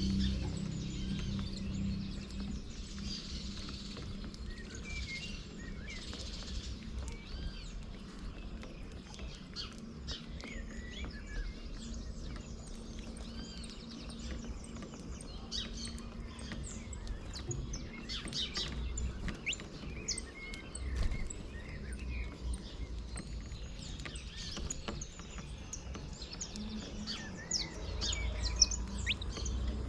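A group of small birds chirping and calling over one another while feeding, many short overlapping chirps, busier in the second half, over a steady low rumble.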